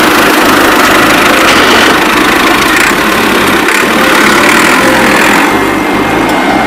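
A tractor engine running steadily, with the low, rhythmic bass of background music beneath it.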